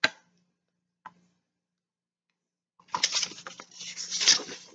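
A short click, then near silence, then about three seconds in the crackling rustle of a large paperback picture book's page being turned by hand.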